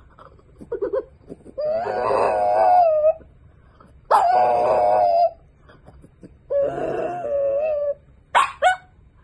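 French bulldog howling: three long, slightly wavering howls of about a second each, with short whines about a second in and near the end.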